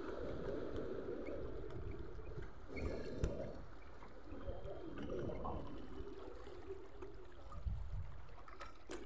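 Seawater lapping and sloshing against the rocks of a breakwater, with a low rumble of wind on the microphone. A single sharp knock comes about three seconds in.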